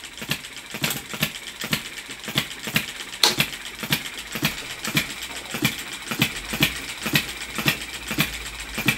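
Small B01 ball-top vertical hit-and-miss model engine running with a regular mechanical clatter of about three sharp clicks a second. It is running slowly under the heavy electrical load of the generator it drives.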